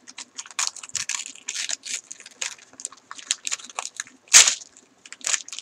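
Shiny gift wrap crinkling and tearing as hands pull a package open, in quick irregular rustles, the loudest about four seconds in.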